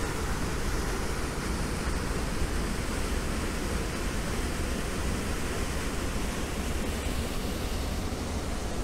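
Skelwith Force waterfall: white water pouring through a narrow rock channel, a steady, unbroken rush.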